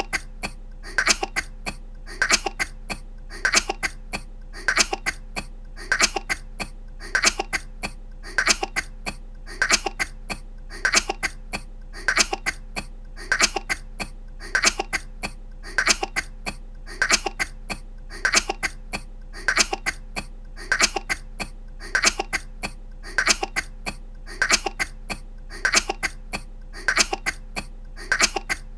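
A woman's short, light coughs in small clusters, the same few coughs looped and repeating at an even pace.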